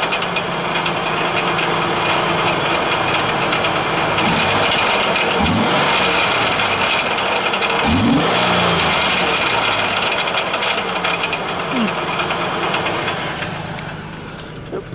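Ford Taurus engine idling, heard from under the car, with a steady metallic rattle over it that the owner suspects comes from the exhaust. It gets quieter near the end.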